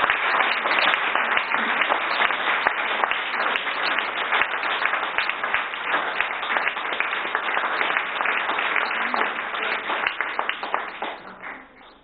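Applause from an audience, many hands clapping in a dense, steady patter that dies away over the last second or two.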